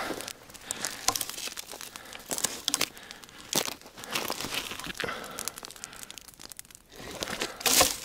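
Crunching and rustling of someone moving through deep, dry snow among brittle spruce twigs, in irregular bursts with fine crackles; the loudest burst comes near the end.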